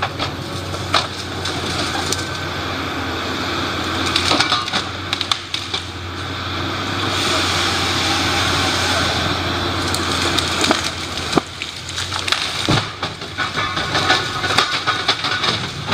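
A heavy wood-cutting machine's engine running steadily while wood is cut or split, with repeated sharp cracks and splintering of wood.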